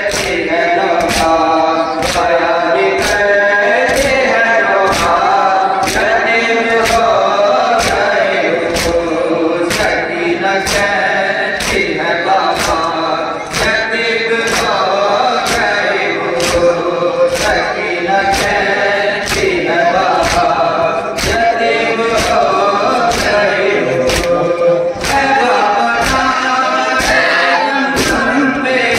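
A group of men chanting a noha lament together without instruments. Under the chant are sharp slaps in a steady beat about once a second, the sound of matam, chest-beating in time with the lament.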